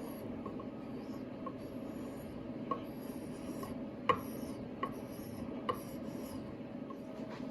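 WoodRiver spokeshave shaving wood from an axe handle in repeated short scraping strokes, cutting with the grain, with a few light knocks of the tool, the sharpest about four seconds in.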